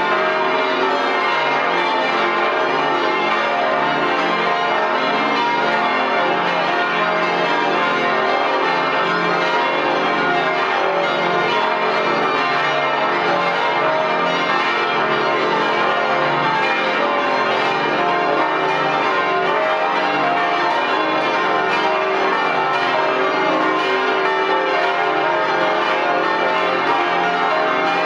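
Full peal of the Stiftskirche Herrenberg's church bells, some twenty bells swinging at once, heard up close inside the belfry. The strokes overlap into a dense, unbroken ringing that stays loud and even throughout.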